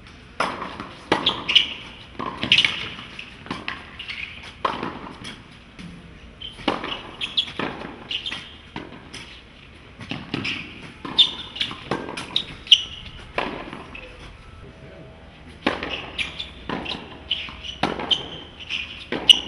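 Tennis balls struck by rackets and bouncing on a hard court during rallies: sharp cracks about once a second, with short lulls between runs of shots.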